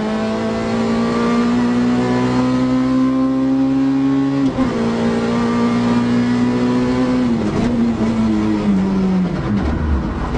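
Rally car engine heard from inside the cabin, running hard at steady high revs. There is a short dip about four and a half seconds in. From about seven and a half seconds the revs fall in steps as the car slows from speed, ending low.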